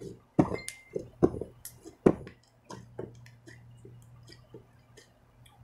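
Homemade slime being pressed and poked with the fingers, trapped air popping out in sharp, irregular clicks and pops, the loudest ones in the first two seconds and smaller ones after.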